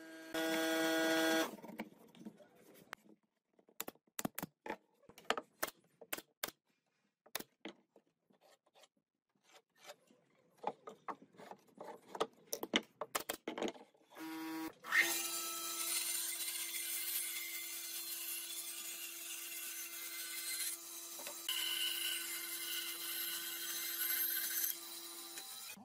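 A brief steady hum at the start, then scattered clicks and knocks of wooden boards being handled and fitted. About fifteen seconds in, a benchtop bandsaw starts and runs with a steady hum while its blade cuts a curve through a wooden board, stopping just before the end.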